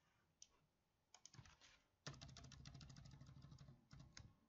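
Faint computer keyboard keystrokes. A few scattered presses come first, then from about two seconds in a fast run of key taps while text is deleted from a field.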